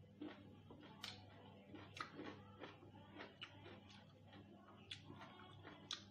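Quiet close-up eating of noodle soup: chewing and wet mouth sounds, with four sharp clicks of a metal fork against the ceramic bowl.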